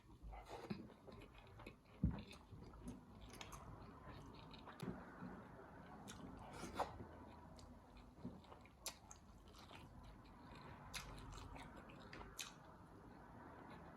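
Close-up chewing and biting of food: irregular wet mouth clicks and smacks, with one louder thump about two seconds in.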